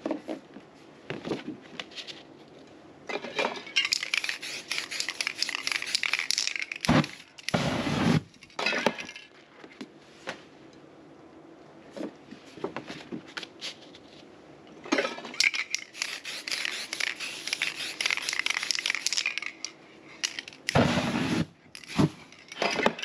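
Aerosol spray paint cans hissing in two long sprays of several seconds each, with scattered clicks and knocks of cans on the work surface. Two shorter, deeper whooshes, one about eight seconds in and one near the end, as the sprayed paint is set alight.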